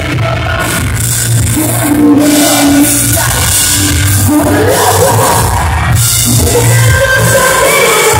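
Live rock band playing loudly, electric guitar and drums under a lead singer's vocals.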